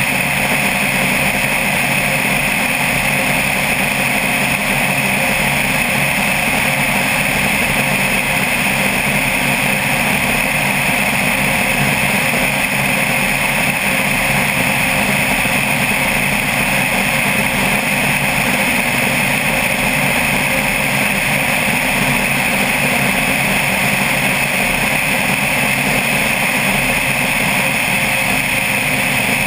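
Single-engine propeller plane's engine and propeller running steadily in cruise, a constant drone with rushing air, heard from a camera mounted outside on the airframe.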